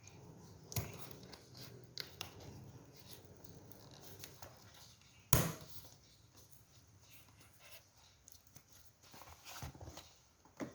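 Packaging being handled and opened by hand: soft rustling and scattered clicks, with one sharp snap about five seconds in and a few more clicks near the end. No harmonica is played.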